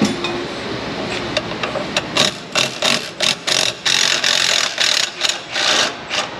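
3/8-inch Milwaukee impact wrench hammering on a seized exhaust manifold bolt in about ten short bursts from about two seconds in, the trigger pulsed on and off to break the bolt loose.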